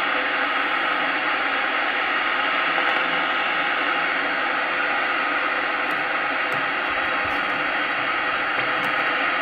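SS-3900 Black AM/FM/SSB CB transceiver's loudspeaker giving a steady static hiss with no voice in it, which cuts off abruptly at the very end. The distant station's signal is lost in the noise.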